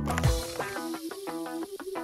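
Background music: the drum beat drops out about half a second in, leaving a run of short, quickly repeated picked notes.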